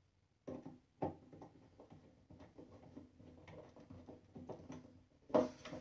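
Hand screwdriver driving a screw through a metal hinge plate into a wooden box: a run of light, irregular clicks, then two louder knocks near the end.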